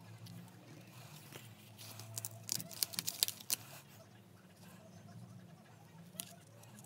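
Card stock being handled and pressed on a table: papery rustles, with a quick run of sharp crackles and taps from about two to three and a half seconds in and one more near the end, over a faint low hum.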